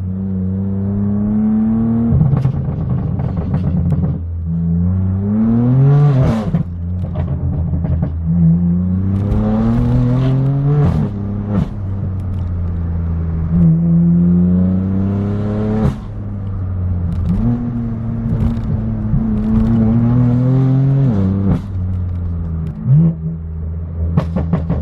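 BMW M4 F82's straight-piped twin-turbo inline-six, through a non-resonated AWE Track exhaust, pulling hard four times in a row: the engine note rises through each gear and drops suddenly at each shift, with short cracks at the shifts.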